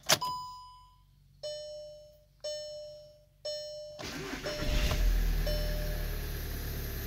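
Volkswagen Jetta's dashboard warning chimes: a click and one higher tone, then three lower chimes a second apart. About four seconds in the engine cranks and catches, then settles into a steady cold-start idle near 1,200 rpm.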